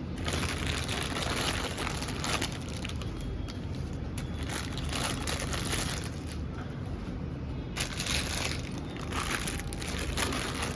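Plastic packaging and mini balloons crinkling and rustling as they are handled, in several bouts of rustling over a steady low background rumble.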